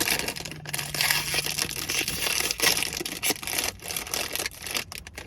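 Plastic cookie packaging being opened, crinkling and crackling loudly with many small snaps and tears. A low steady hum sounds under it for the first couple of seconds.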